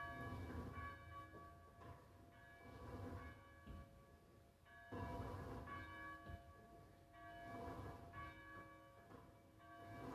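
Church bell tolling slowly, struck about every two and a half seconds, with each stroke still ringing when the next one lands: a memorial toll.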